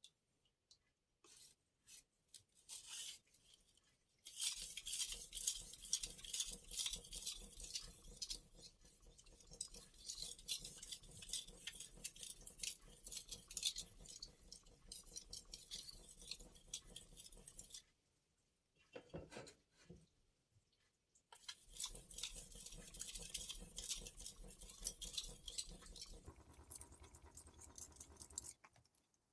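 Steel blade of a Global G-48 santoku being stroked back and forth on the soaked 3500-grit side of a Chroma whetstone to polish the edge: a fast run of gritty scraping strokes begins about four seconds in, stops for a few seconds past the middle, then starts again until shortly before the end.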